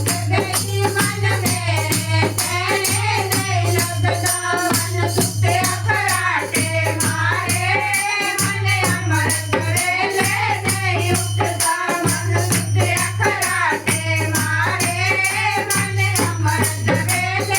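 Kirtan group singing a Hindi devotional bhajan, voices over shaken, rattling hand percussion that keeps a fast, steady beat.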